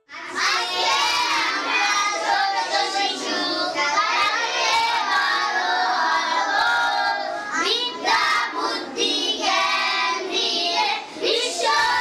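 A group of young children singing a song together, many voices at once. It starts suddenly.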